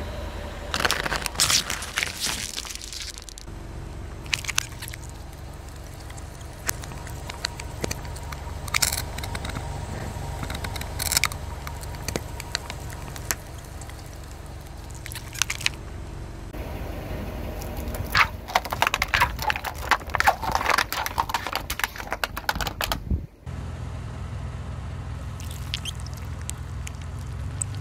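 Car tyre rolling slowly over and crushing soft and crunchy things: plastic cups of water beads, slime and a block of jelly. Each crush gives bursts of crackling and squishing over a steady low engine hum, with the densest crackling near the end.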